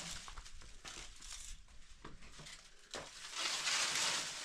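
A bundle of dry branches and twigs rustling and crackling as it is set down on a pile of firewood. A few light snaps come first, and the crackling gets loud about three seconds in.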